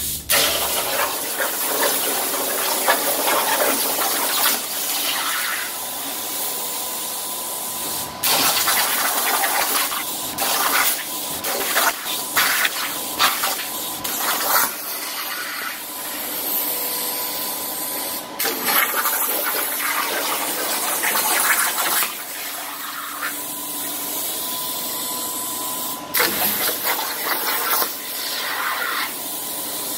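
Thermal Dynamics A60i air plasma cutter on a CNC table cutting steel sheet: a loud, steady hiss of the arc and air. It breaks off and starts again sharply several times, with a faint steady high whine under it.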